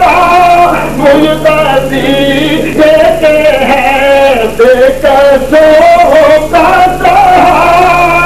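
A man singing a naat verse unaccompanied into a microphone, in long held notes that waver and glide between short breaths, over a steady low electrical hum.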